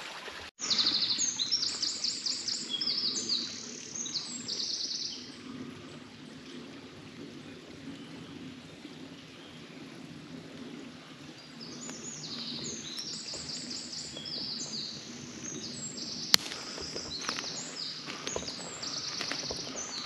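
A small songbird singing long, rapid phrases of high repeated notes, twice, over a steady low background rush. A few sharp clicks come near the end.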